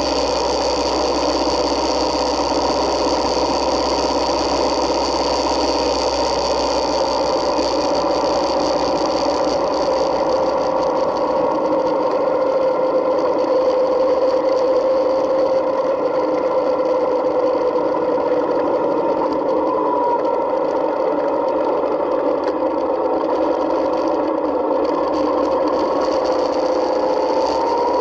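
Yamaha Midnight Star 1900's V-twin engine running steadily while the motorcycle is ridden, its pitch rising a little near the end.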